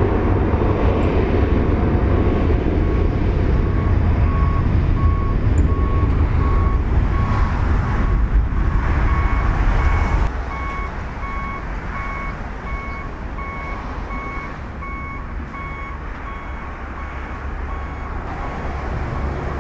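Boeing 737-800's CFM56-7B jet engines at takeoff thrust: a loud, deep, steady rumble that drops suddenly about halfway through and carries on quieter as the jet climbs away. Over it a steady electronic beep repeats about once every 0.7 seconds, and a higher second beep joins about halfway.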